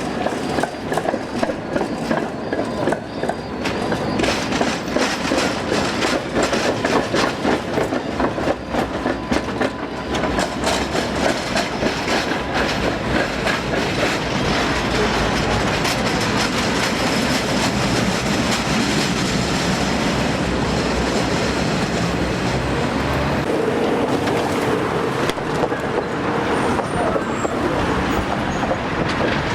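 Tram running along its track, its wheels clattering and knocking over the rails. A steady humming tone comes in about three-quarters of the way through.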